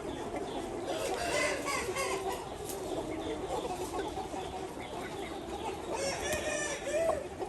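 Ho chicken rooster crowing twice, about a second in and again about six seconds in, over steady clucking from a flock of chickens.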